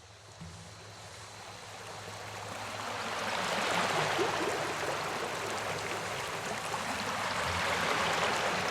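Stream water flowing and rushing over rocks, a steady watery rush that fades in over the first few seconds.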